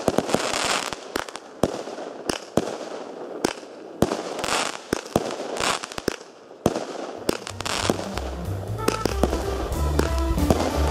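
Fireworks going off: a string of sharp bangs with crackling between them from bursting aerial shells. About two-thirds of the way through, music with a steady bass line comes in under the last bangs.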